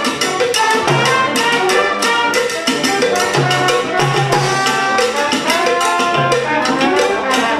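Youth orchestra of trumpets, saxophones, clarinets, flutes and tubas playing salsa with Latin percussion, the brass holding long notes over a steady percussion beat.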